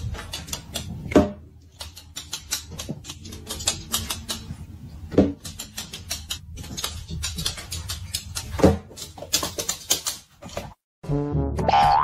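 Light tapping and clicking as a cat paws small rings and balloons off a bed, with three louder knocks about a second, five seconds and nearly nine seconds in.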